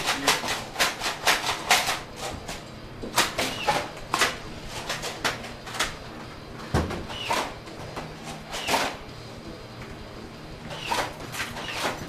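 Nerf blasters being primed and fired: a quick run of sharp clicks and snaps in the first two seconds, then scattered single pops, some followed by a short falling whoosh.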